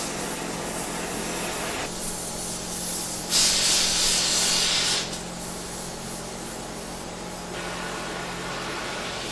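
Gas torch burning with a steady hiss that grows louder twice, heating a driveshaft yoke to free a seized U-joint that a press would not push out.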